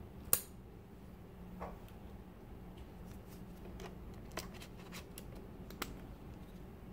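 Battery compartment door on the base of a Fujifilm X-T2 camera snapping open with one sharp click, followed by several lighter clicks and taps as the camera is handled.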